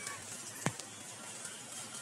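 The falling tail of a high, short cat meow at the very start, then faint background with a single sharp click a little past halfway through the first second.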